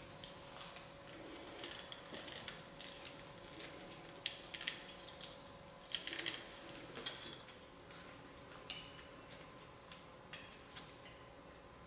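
Faint scattered clicks, rubs and light metallic taps of hands working a toothed timing belt onto the cam sprockets and tensioner of a Mitsubishi 4G63 engine, about a dozen small knocks over a steady low hum.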